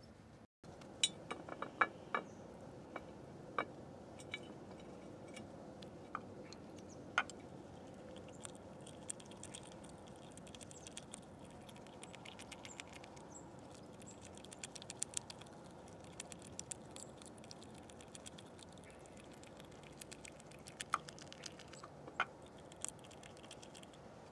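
Small animal feeding at food put out on a window sill: scattered sharp taps and clicks, with a fast fine ticking through the middle.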